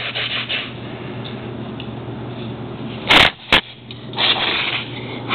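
Rustling and handling noise of a camera being moved about, with a sharp loud knock about three seconds in and a smaller click just after.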